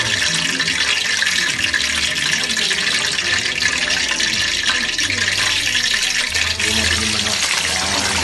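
Hot cooking oil in a wok sizzling with a steady hiss, the oil heated to frying temperature.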